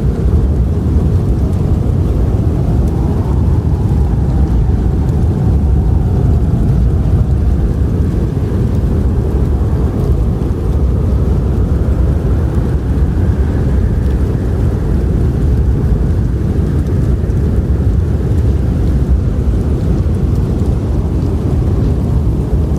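Strong howling wind of a blizzard: a deep, steady rumble with a fainter howl above it that slowly rises and falls in pitch.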